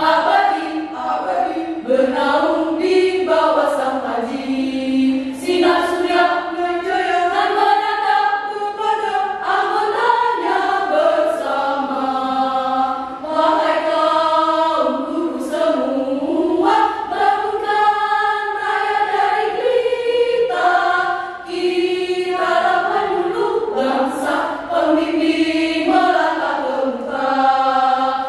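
A women's choir singing without instrumental accompaniment, with sustained notes that shift in pitch from phrase to phrase.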